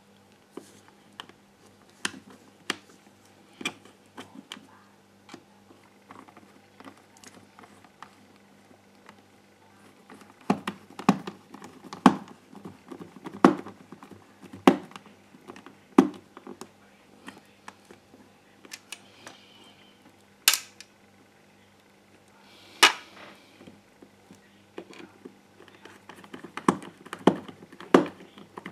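Scattered clicks and knocks of fingers and a small screwdriver working on a GHD 5.0 hair straightener's plastic housing, thicker in the middle and again near the end, over a steady low hum.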